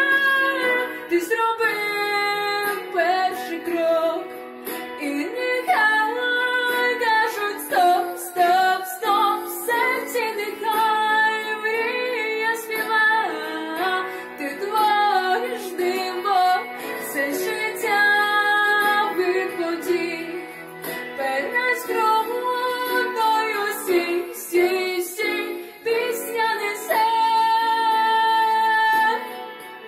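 A woman singing a song over instrumental accompaniment, with a long held note near the end.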